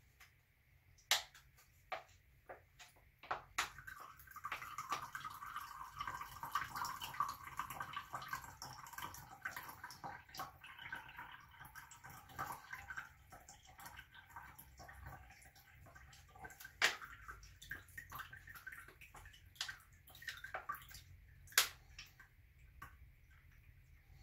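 Filtered water from a Sawyer Mini water filter falling into a glass of water. A few separate drips come first, then a steady trickle from a few seconds in to about halfway, then scattered drips with a couple of sharper plinks. The filter is passing water on its second use.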